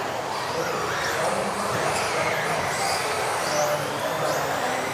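Several 1:10 electric RC off-road buggies racing at once: high motor whines rising and falling as they speed up and brake, over a steady rush of tyre and drivetrain noise, echoing in a large sports hall.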